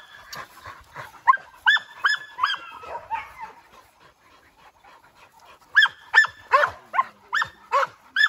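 Hunting dogs barking in short, sharp, high yelps, about two or three a second. There are two runs of barks: one starting about a second in and another from about six seconds in, with a quieter spell between.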